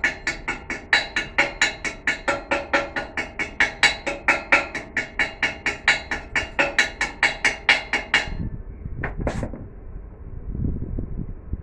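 Rapid, even hammering on metal, about five ringing strikes a second, stopping about eight seconds in. A low rumbling noise follows.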